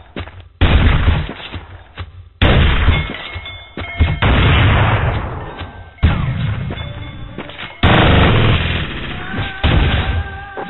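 A series of loud bangs, one about every two seconds, six in all, each dying away over a second or so.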